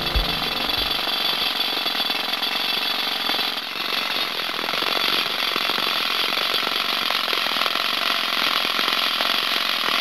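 Percussion rock drill on a drill rig boring into rock, hammering rapidly and steadily.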